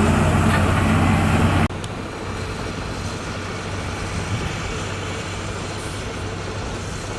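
Heavy road-construction machine's diesel engine running with a low, steady drone. Less than two seconds in the sound drops sharply to a quieter engine drone, which then holds steady.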